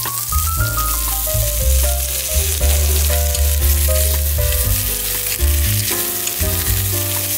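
Oil sizzling steadily as lemongrass, shallots, garlic and onion fry in an electric pressure cooker's pot, stirred with wooden chopsticks. A background music melody with a bass line plays over it.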